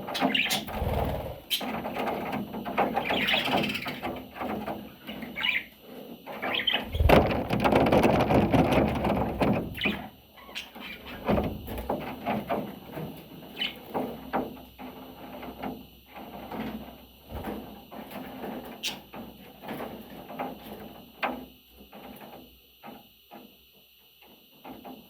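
Pet budgerigar chattering and squeaking, mixed with many short clicks. The sound is loudest about seven to ten seconds in and gets sparser and quieter towards the end.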